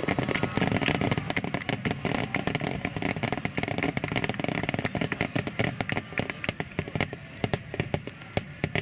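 Rapid-fire starmine fireworks: a dense crackling of many small pops from gold crackle stars over a low rumble of bursts, thinning out near the end.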